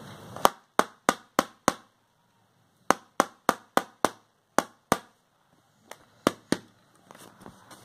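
A series of sharp clicks at about three a second: a run of five, a pause of about a second, five more, then a few sparser, fainter clicks.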